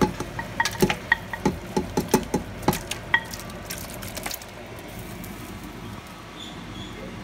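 Sharp metal clacks and scrapes of cookware, about three a second, as cooked goat meat is scraped from one stainless steel pot into another pot of broth. After about four seconds the clacks stop, leaving a steady low hiss from the pot of hot broth.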